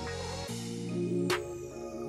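Background electronic music with held bass notes and a single percussive hit a little past halfway.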